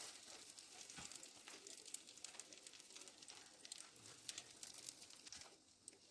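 Food frying in a pan, sizzling faintly with many small crackles; it dies down about five and a half seconds in.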